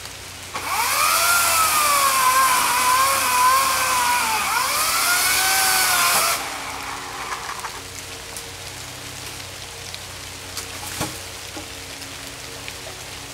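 Greenworks 18-inch 14.5-amp electric chainsaw motor whining for about six seconds while cutting, its pitch sagging and recovering under load, then released and winding down. Rain hiss underneath, and a single knock near the end.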